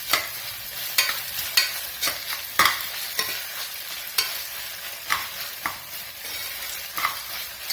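Onions and ginger-garlic paste sizzling in hot oil in a small pressure cooker while being stirred for sautéing. The utensil scrapes the metal with a short sharp stroke every second or so.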